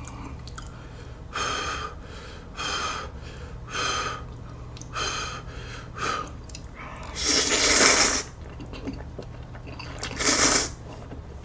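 A person slurping Buldak spicy ramen noodles from a bowl: a run of short slurps about a second apart, then a longer, louder slurp around seven seconds in and another near the end.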